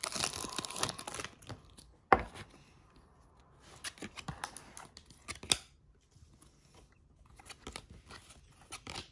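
Foil trading-card pack wrapper crinkling as the stack of cards is drawn out, then soft scrapes and flicks of the cards being slid one by one through the hands. A single sharp tap comes about two seconds in.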